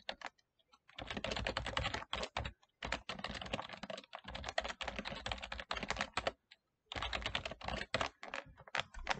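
Typing on a computer keyboard: three quick runs of keystrokes separated by short pauses.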